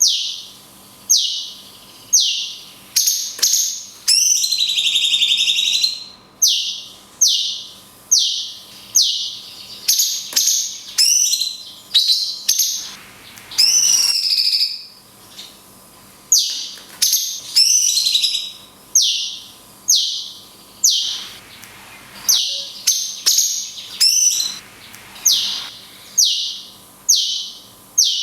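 Cucak cungkok singing: a long run of short, sharp, falling notes about one a second, broken twice by longer trilling phrases.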